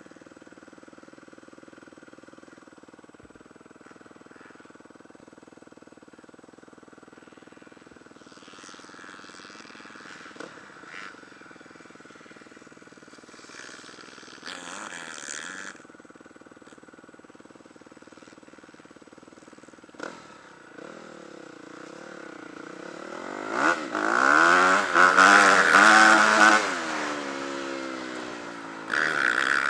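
Motocross dirt bike engine heard from a camera mounted on the bike: running low and fairly quiet for most of the time with a few brief knocks, then in the last several seconds revving hard, pitch climbing and dropping again and again as it accelerates through the gears.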